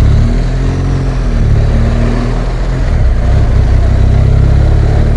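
BMW R1200GS boxer-twin motorcycle engine running steadily under way, with wind noise.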